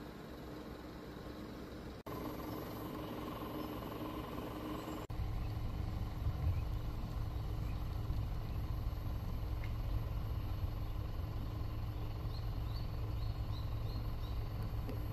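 Steady low outdoor background rumble, broken by two brief dropouts at edit cuts and somewhat louder after the second. A few faint, short, high chirps come near the end, like small birds.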